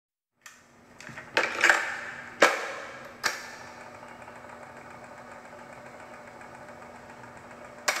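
Faint steady hum of a car driving through a road tunnel, heard from inside the car, with a low drone. Several sharp knocks with echoing tails come in the first few seconds, and one more comes near the end.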